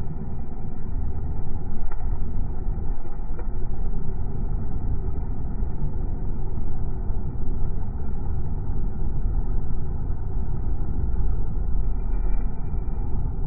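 Comfort Zone electric heater's fan running steadily, a loud low rush of moving air heard close up at the grille, with a couple of faint ticks in the first few seconds.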